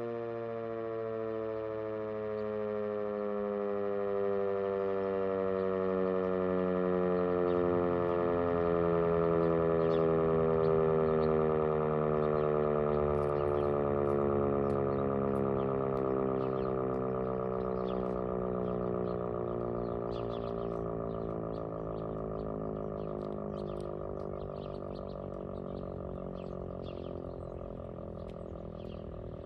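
Sentry 10V outdoor warning siren winding down after its steady Alert tone, its pitch falling slowly and steadily. It grows louder to a peak about a third of the way in, then fades.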